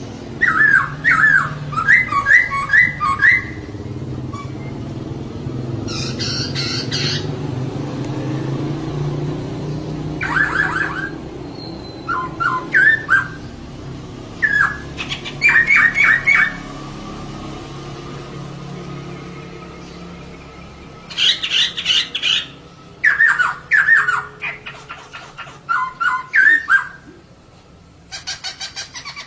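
Female poksay laughingthrush calling: short bursts of rapid, chattering notes repeated about ten times with pauses between them, over a low steady background hum.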